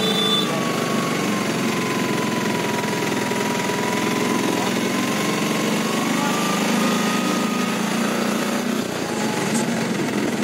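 Small engine of the vehicle carrying the recorder running steadily while driving, with road and wind noise. A faint whine dips and rises slowly.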